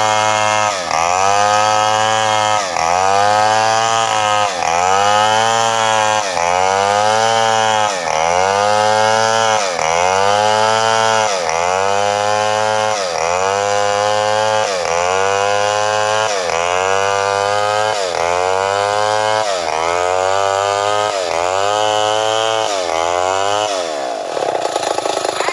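Two-stroke chainsaw ripping a sengon log lengthwise, its engine pitch dipping and recovering about every two seconds as the bar is worked under load through the cut. Near the end the engine drops off to idle.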